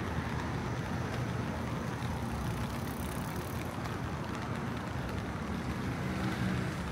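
Steady traffic noise on a wet city street: a low rumble of passing vehicles with a faint hiss, under light rain.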